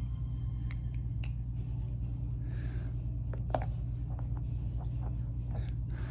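Scattered sharp clicks of a balisong butterfly knife being handled, its metal handles knocking and clicking, over a steady low hum.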